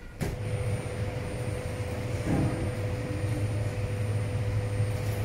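Steady mechanical drone with a low hum and a thin high whine, cutting in suddenly just after the start.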